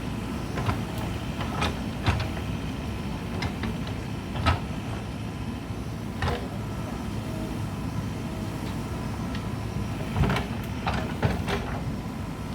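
Mahindra backhoe loader's diesel engine running steadily, with short sharp knocks and clanks every second or two as it works.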